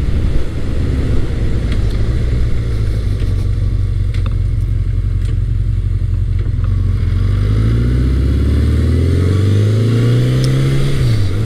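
1980 Honda CB900 Custom's 902 cc inline-four on its quiet stock exhaust, heard from the saddle over wind noise. It runs at low steady revs, then from about seven seconds in it accelerates with rising pitch, and near the end a quick dip in pitch marks a gear change before it pulls again.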